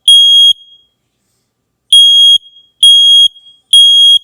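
Smoke alarm sounding: loud, high-pitched beeps in the three-beep evacuation pattern, with the last beep of one group at the start, a pause, then a group of three about two seconds in.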